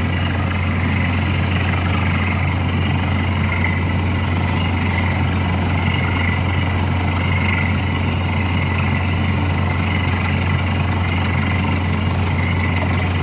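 Drilling rig's engine running steadily: a constant low hum with no change in speed.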